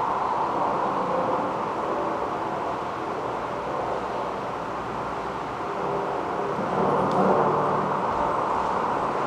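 Steady rushing background noise with no speech, swelling slightly about seven seconds in.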